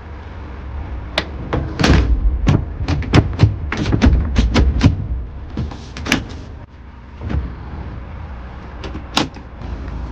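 Mercedes Econic truck door handle and latch being worked by hand: a quick run of about a dozen sharp clacks and clunks in the first few seconds, then a few single ones spaced out, over a steady low rumble.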